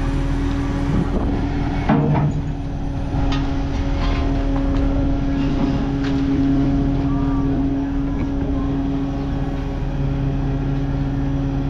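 Diesel engine running at a steady speed, a continuous drone, with a few sharp knocks about two seconds in.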